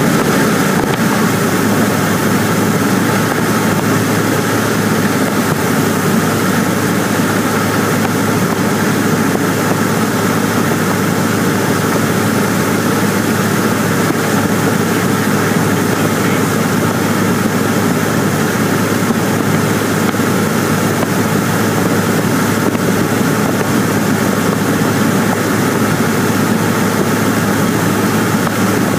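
Cessna 150's four-cylinder Continental O-200 engine and propeller running steadily in flight, heard inside the small cabin with airflow noise over the airframe.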